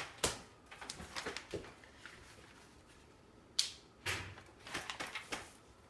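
A sheet of printer paper rustling as it is picked up off a table and held up, with a few light clicks and one sharper snap about three and a half seconds in.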